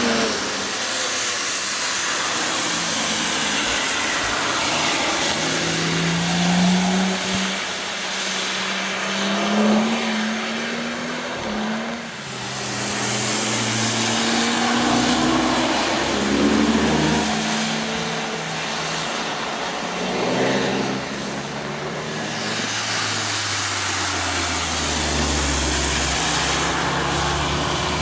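Cars passing one after another on a wet circuit: engines revving up and dropping through gear changes, with the tyres hissing through water on the track. The hiss swells and fades as each car goes by, three times or so.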